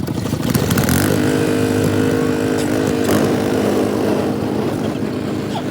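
Snowblower's small gasoline engine running steadily, a continuous drone that settles to an even pitch about a second in.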